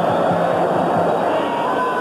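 Dense stadium crowd noise with a steady roar of many voices, and sustained singing or chanting heard faintly in the first second.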